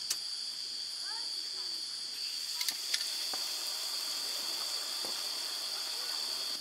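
Steady, high-pitched insect chorus of crickets or cicadas, with a few sharp clicks about two and a half to three seconds in.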